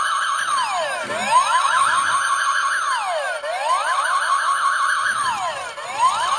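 Electronic police-siren sound effect from a Miles from Tomorrowland Space Guard Cruiser toy. It is a wail that sweeps down and back up, then holds high with a warble, repeating about every two and a half seconds.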